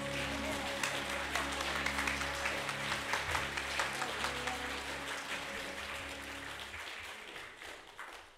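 Church congregation applauding while the last held chord of the choir's accompaniment rings on; the chord dies away about six seconds in and the clapping thins out and fades near the end.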